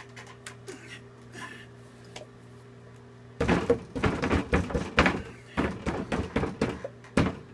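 A cup of thickening Durabond setting-type joint compound knocked and shaken upside down against a wooden board to get the stiffening compound out. The knocks come in a quick run of loud thumps, about three a second, starting about halfway through.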